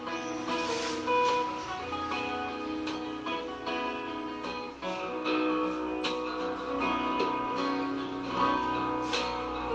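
Background music led by plucked and strummed guitar.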